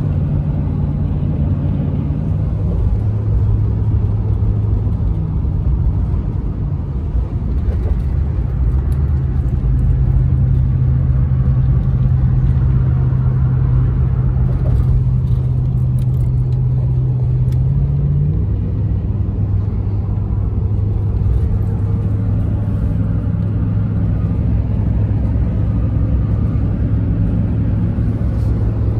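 Road and engine noise from inside a car's cabin driving on a highway: an even rumble with a low hum that steps up and down in pitch a few times.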